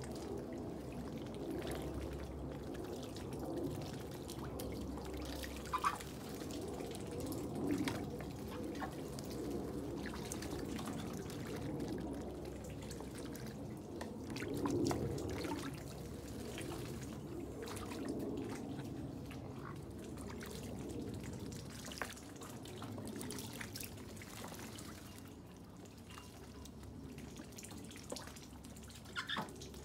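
Rainwater dripping and trickling steadily, with a few louder drips or small splashes scattered through.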